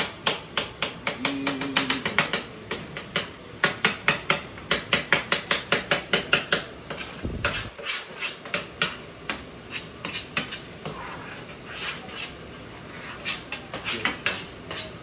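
A spoon knocks and scrapes against a metal saucepan as thick mashed potatoes are beaten. It taps quickly, about five times a second, then turns slower and softer after about six seconds.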